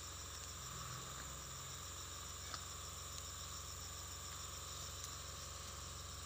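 Steady chorus of insects in tropical undergrowth, one of them a high call pulsing several times a second, with a faint click about two and a half seconds in.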